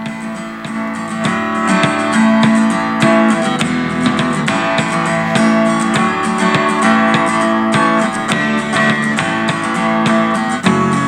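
Strummed and plucked acoustic guitar music, played loud through a small wireless soundbar speaker in its aux-input mode; it swells up over the first second or two.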